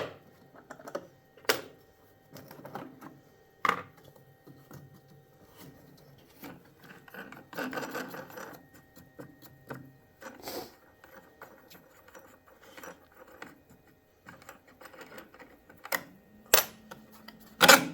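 Air filter housing on a Kohler Command engine being opened and the old filter taken out by hand: scattered sharp clicks and knocks of the cover and parts, with a stretch of rustling handling in the middle.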